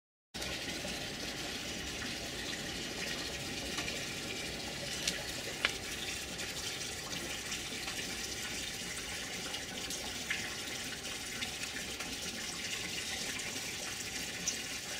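A steady rushing hiss, with two faint clicks about five seconds in.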